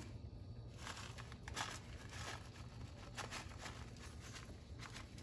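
Faint, irregular rustles and soft ticks of shredded Parmesan being sprinkled by hand from its bag over a dish of potatoes, over a low steady hum.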